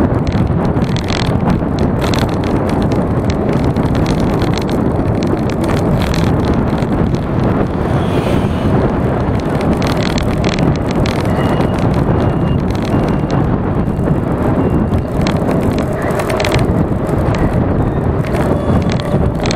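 Wind buffeting the microphone of an SJ5000X action camera on a moving bicycle: a loud, steady rumbling rush.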